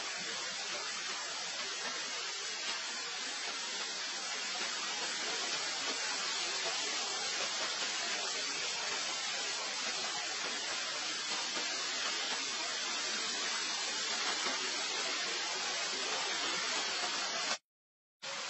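Steady, even hiss of noise with no distinct sounds in it. It cuts out for about half a second near the end.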